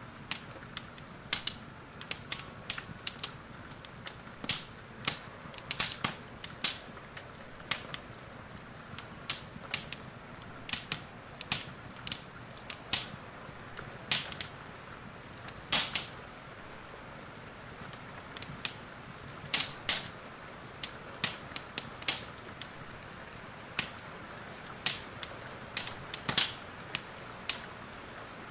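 Wood fire in a fireplace crackling, with irregular sharp pops over a steady hiss of falling rain.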